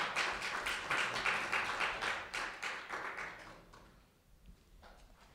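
A small audience applauding, the clapping dying away about three and a half seconds in.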